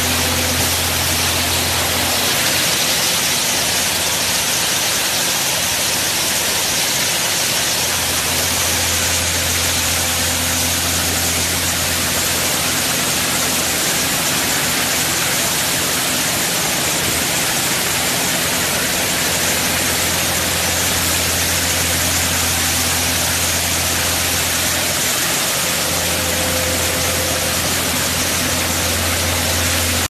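Concrete mixer truck running steadily, a low engine hum under a loud, even hiss of wet concrete sliding down the steel chute. The hum drops away for a few seconds about two seconds in, and again briefly near the end.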